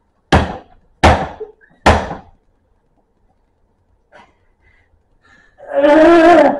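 Three loud thunks about three-quarters of a second apart: a plastic baby doll slammed down hard on a table. Near the end a man lets out a loud, strained cry of effort lasting about a second as he pulls at the doll.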